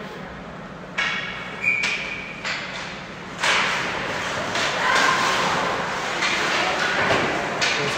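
Sounds of ice hockey play echoing in an arena: several sharp knocks and thuds, typical of puck and sticks against the boards, from about a second in. From about three and a half seconds a steady rush of noise builds up.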